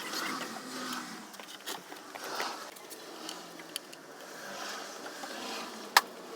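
Light scrapes and small clicks of tools and parts being handled during a motorcycle oil change, with one sharp click about six seconds in.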